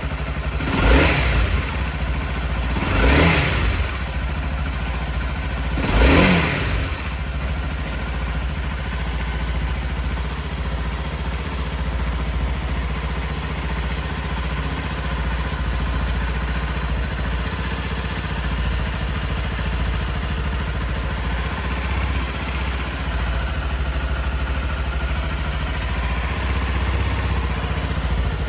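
Honda CRF250L's single-cylinder four-stroke engine blipped on the throttle three times in the first several seconds, then idling steadily.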